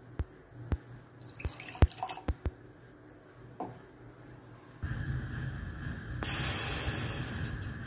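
Water dripping and splashing into a metal pot in a series of sharp drips. From about five seconds in, a steady rumble with a hiss as the pot sits over a lit gas burner.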